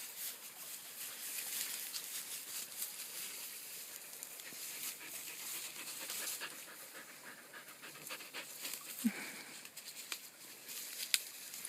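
Australian Shepherd puppy panting.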